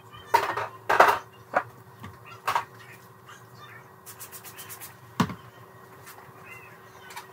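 Knocks and clatter of containers, shelves and drawers being handled while a fridge is cleaned out: a few separate knocks, then a quick run of light clicks and one heavier knock, over a faint steady hum.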